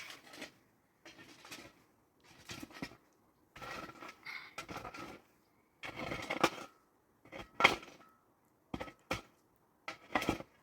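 A series of about eight short bursts of scraping, clattering handling noise, each half a second to a second and a half long, with quiet gaps between them.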